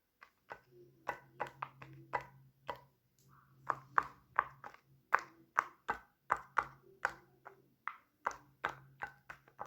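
Fidget toys being clicked and tapped: a quick, uneven run of sharp plastic clicks, about three a second, over a faint steady hum.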